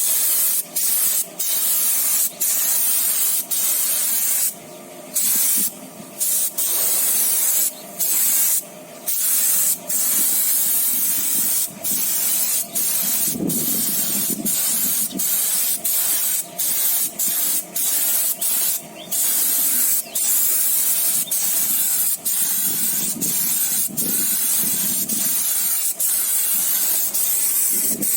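Spray gun hissing in long bursts, cut by many brief pauses as the trigger is let go and pulled again.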